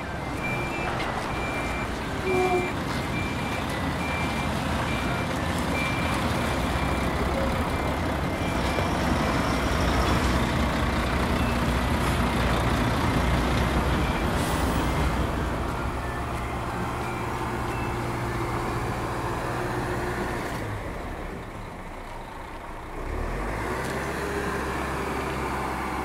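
Truck engine sound effect running steadily, with a reversing beeper sounding repeatedly over the first several seconds. The engine sound drops away for a couple of seconds near the end, then picks up again.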